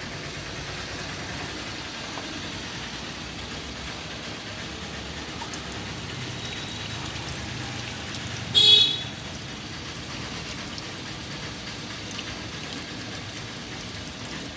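Steady background hiss, broken once, about nine seconds in, by a short high-pitched squeal.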